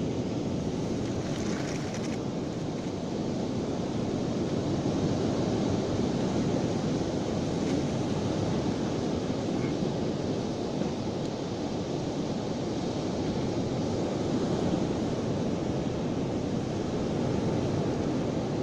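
Steady rush of surf breaking on the beach with wind buffeting the microphone, swelling gently a few times.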